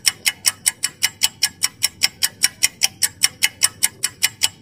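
Ticking sound effect of a quiz countdown timer, a clock-like tick repeating evenly about five times a second.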